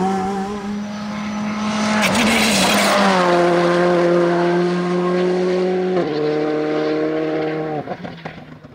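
Rally car engines running hard at high revs, each held at a steady pitch. There is a burst of noise about two seconds in, a sudden step down in pitch about six seconds in, and the sound dies away near the end.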